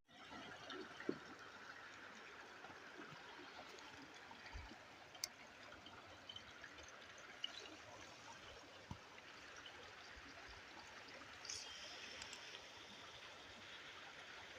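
Mountain stream running, a faint steady rush of water with a few small ticks.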